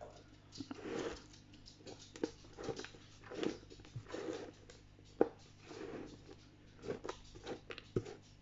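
A hand rummaging through loose peat potting substrate in a plastic tub: repeated soft scratchy rustles, with a few sharp clicks from small stones in the substrate knocking against the plastic.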